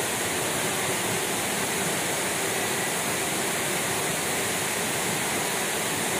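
Steady rushing of a waterfall pouring into its pool, an even, unbroken noise.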